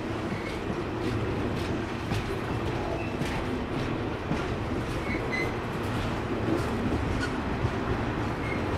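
Container wagons of a freight train rolling past: a steady low rumble with irregular clicks from the wheels and a few brief, faint high squeaks.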